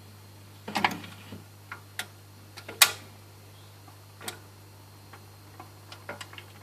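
BSR Monarch autochanger running its end-of-record cycle: a series of mechanical clicks and clunks as the tonearm lifts off the single and swings back to its rest, the loudest click about three seconds in. A steady low hum runs underneath.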